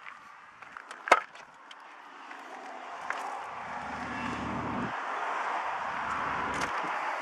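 Handheld camera handling: a sharp click about a second in and a few lighter clicks, then a steady rushing noise that slowly grows louder, with low rumbling on the microphone twice.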